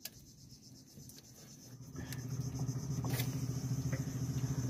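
Outrigger fishing boat's engine starting up about two seconds in and settling into a steady, fast-pulsing low hum that grows a little louder.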